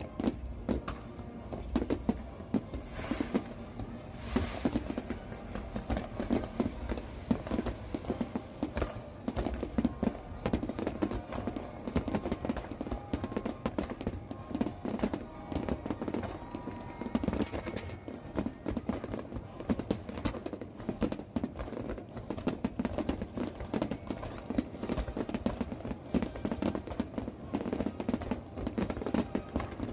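Fireworks finale: a dense, unbroken barrage of aerial shell bursts and crackles, with music from the show's sound system playing underneath.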